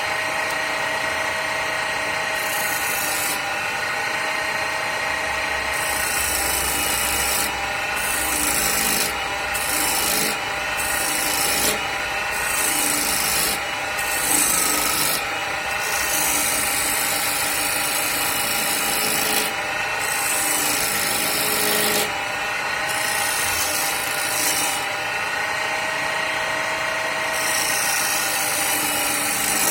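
Homemade wood lathe running with a steady motor whine while a hand chisel cuts a spinning wood blank. The rasping cut starts and stops repeatedly as the chisel is pressed in and lifted off.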